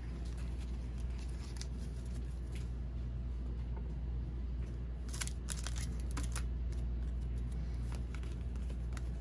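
Trading-card pack wrappers crinkling and tearing as packs are opened by hand, with a cluster of sharp crinkles about five to six and a half seconds in. A steady low hum runs underneath.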